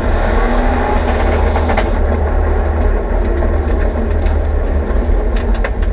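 Inside the bare, stripped cabin of a Mitsubishi Lancer Evolution X rallycross car at speed: its turbocharged 2.0-litre four-cylinder running with a heavy steady rumble, while loose stones tick and clatter against the body in sharp, scattered hits, thickest near the end.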